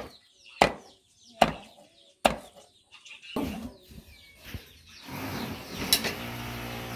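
Cleaver chopping cooked chicken pieces on a wooden chopping block: four sharp chops in the first two seconds or so, with birds chirping in the background. About five seconds in, a steady hum sets in.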